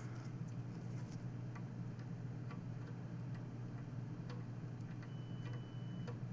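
Light irregular clicks and taps of soldering tools working on a PS4 circuit board's HDMI port pins, over a steady low hum. A steady high beep sounds for about a second near the end.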